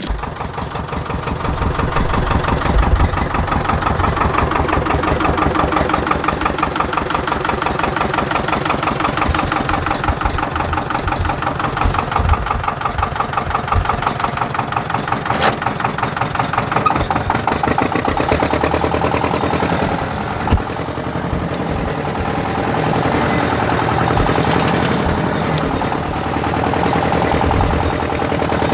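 An engine running steadily throughout, with a fast, even beat.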